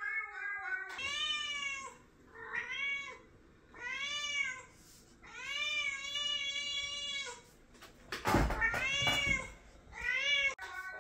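Recorded cat meows played back on a computer: about six long meows with short gaps between them, each rising and then falling in pitch. A brief thump comes about two-thirds of the way through, during one of the meows.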